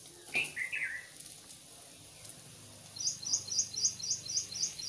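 A bird repeating a quick, even run of high chirps, about four a second, starting about three seconds in; near the start, a short falling call of three notes. A light knock near the start as onion slices drop into a dry steel kadhai.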